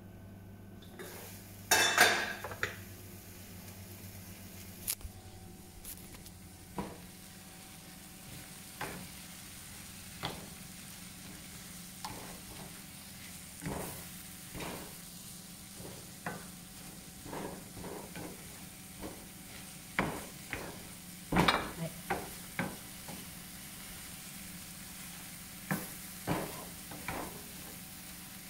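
Egg, tomato and green pepper scramble sizzling in a non-stick frying pan, stirred with a wooden spatula that knocks and scrapes against the pan every second or so. A louder clatter comes about two seconds in.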